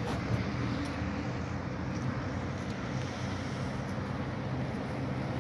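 Steady low engine hum with traffic noise.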